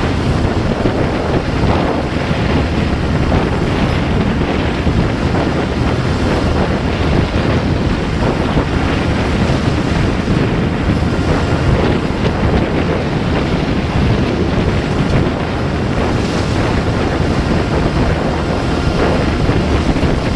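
Wind buffeting the microphone over the steady rush of water along a sailboat's hull as it sails through choppy water.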